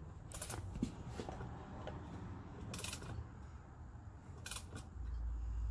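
Three short mechanical rasps a second or two apart, hand tools at work turning a Honda 3.2L V6 engine over by hand. The camshaft sprocket and timing belt are being rotated to bring cylinder 6 to top dead centre for valve-clearance adjustment. A low rumble swells near the end.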